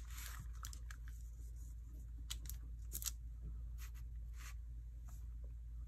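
Soft handling noises: a handful of short rustles and scuffs as a foam sponge stamp is pressed onto fabric and hands move over a paper-plate paint palette.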